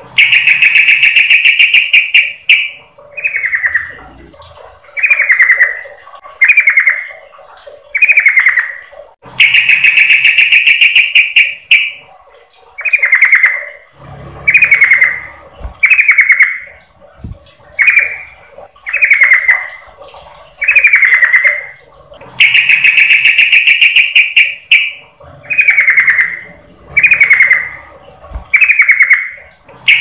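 Yellow-vented bulbul (trucukan) calls from a bird-lure recording, presented as a female calling a male. Three long, buzzy chattering notes of two to three seconds alternate with runs of short chattering notes, about one a second.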